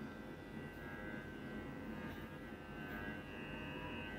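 Small electric pet hair trimmer running with a steady, faint whine.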